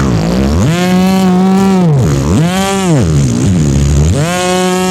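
Beatboxer's vocal imitation of a wood-cutting machine: a buzzing whine that glides up, holds a steady pitch, then drops, three times over, like a saw running up to speed and biting into wood.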